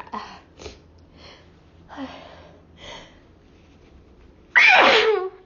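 A woman sniffing and drawing several short breaths, then letting out one loud sneeze with a falling voiced cry near the end. The sneezing is set off by chhinkni, a sneezing powder taken up the nose.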